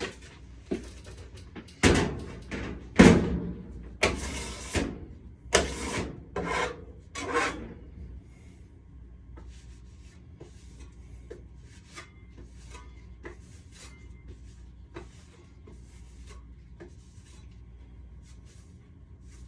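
Rough scraping strokes of hand drywall work on a taped joint, about six loud strokes in the first eight seconds, followed by quieter small scrapes and taps.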